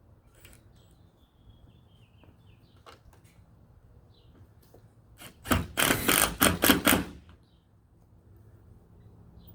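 A quick run of loud, sharp clicks and clacks, seven or eight in about a second and a half, a little past halfway through.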